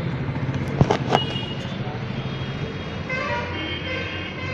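Two sharp metallic clinks about a third of a second apart, a second in, as a steel T-handle box spanner knocks against metal, over a steady hum of road traffic.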